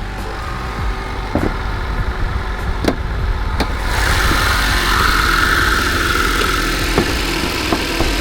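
Car engine idling steadily, warming up, with a few sharp clicks in the first four seconds. About four seconds in the sound gets louder, with a hiss and a whine added over the idle.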